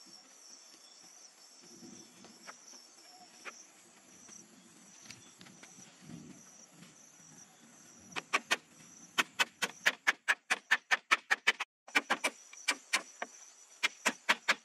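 Low rustling and knocking of bamboo poles being handled, then from about eight seconds in a run of quick hammer strikes on bamboo, about four a second with one short pause. Insects chirr steadily throughout.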